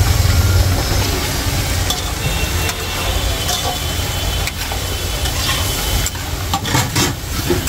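Onions frying in hot oil in a large kadhai, sizzling as they are stirred, with a few sharp clicks here and there. A steady low rumble runs underneath.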